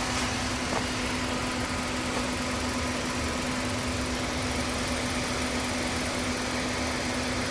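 Car running with a steady hum and even engine and road noise, with two faint knocks in the first second.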